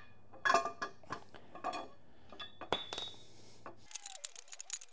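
Steel camshaft and its gear being drawn by hand out of a 12-valve Cummins engine block: scattered metallic clinks and clicks as the lobes and gear knock against the block, turning into a quicker run of light ticks near the end.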